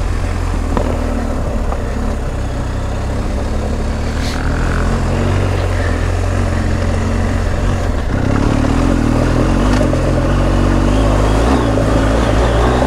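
BMW R1250 GS Adventure's boxer-twin engine running at low revs as the bike rides slowly down a rough dirt track, under a steady rushing noise. About eight seconds in, the engine note rises slightly and gets a little louder.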